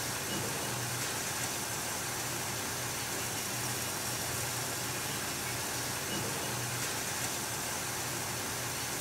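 Steady low motor drone under an even hiss, unchanging throughout.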